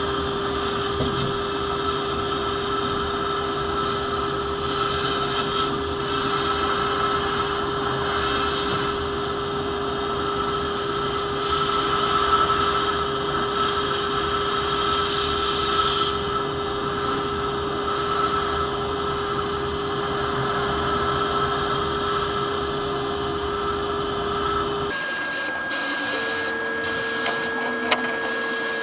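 Sandblasting cabinet: the blast gun hissing steadily as compressed air and abrasive strike rusty pressed-steel toy parts, over a steady hum. About 25 seconds in the sound changes: the low rumble drops away and the hum shifts higher.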